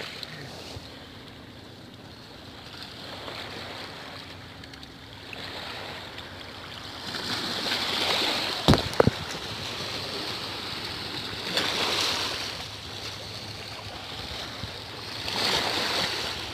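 Small waves washing in, swelling and fading every three to four seconds. About nine seconds in come two or three sharp knocks.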